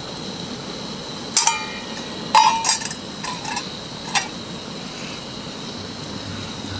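Metallic clinks of a stainless steel camp pot being set onto a small propane canister stove: a sharp clink about a second and a half in, a louder clatter of knocks a second later, then a couple of lighter taps.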